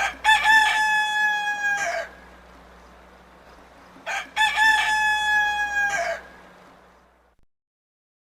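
Rooster crowing twice, about four seconds apart. Each crow opens with a few short broken notes and ends in a long held note that drops off at the end.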